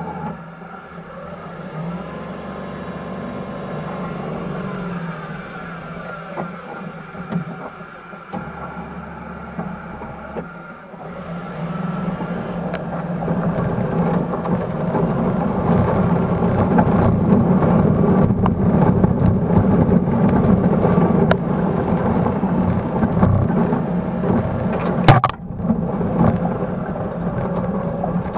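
Suzuki Carry mini truck driving with a front plow pushing snow, heard at its front wheel. The engine runs steadily and fairly quietly at first. About eleven seconds in it gets louder and works harder, with a constant crackling rush of snow against the blade and tyre. One sharp knock comes near the end.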